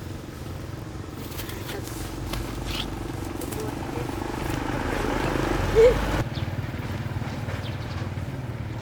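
A vehicle engine running, growing louder over a few seconds and then dropping off suddenly about six seconds in, with a short sharp sound just before, over a murmur of voices.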